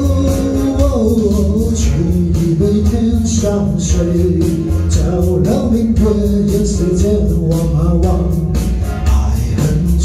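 A man singing live into a handheld microphone over a karaoke backing track with guitar and a steady beat.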